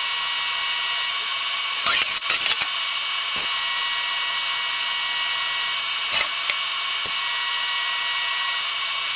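TIG welding arc on a steel suspension bracket: a steady buzzing hiss, broken by a few short clicks about two seconds in and a couple more later.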